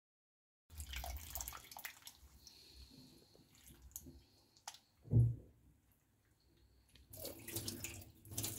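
Water splashing in a bowl and hands swishing wheat grains as the wheat is rinsed under cold tap water, starting a moment in, with scattered clicks and drips. A dull thump about halfway through is the loudest sound.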